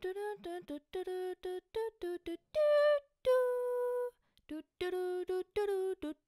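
A voice singing a short tune in quick clipped syllables, mostly on one repeated note, with two longer, higher held notes a little before the middle.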